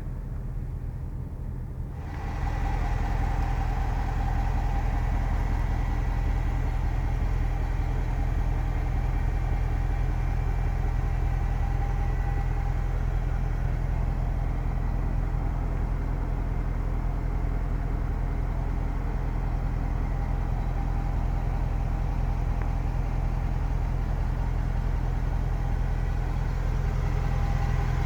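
Range Rover Sport's supercharged 5.0-litre V8 idling steadily. It gets louder and fuller about two seconds in, then holds level.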